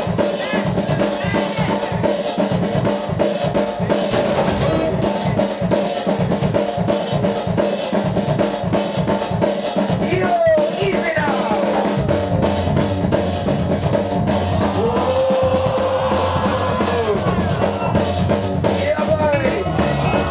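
Drum-led breakbeat music played by the DJ over the club's sound system, with a steady beat; a bass line comes in about twelve seconds in.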